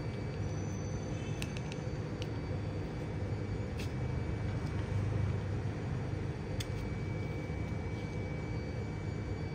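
A steady low rumble, with a few faint clicks scattered through it.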